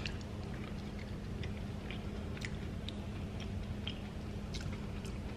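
Close-up chewing of a mouthful of shrimp boil: soft, irregular wet mouth clicks and smacks. A steady low hum runs underneath.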